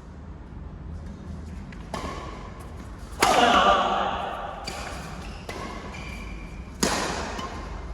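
Badminton play in an echoing sports hall: sharp racket-on-shuttlecock hits and thuds ring out about two seconds in, again louder a second later, and once more near the end, with players' voices.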